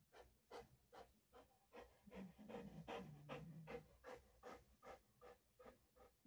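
Large dog panting steadily, about two and a half breaths a second.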